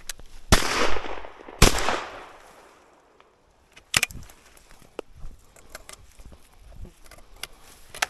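Two shotgun shots about a second apart from an over-under shotgun, each trailing off in a short echo. A few sharper clicks and rustles follow a couple of seconds later.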